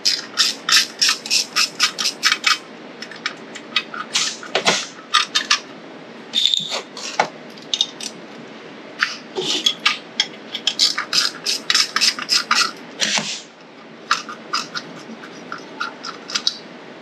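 Ratchet wrench clicking in quick runs of sharp ticks with short pauses between them, as bolts are backed out of a small engine's cover.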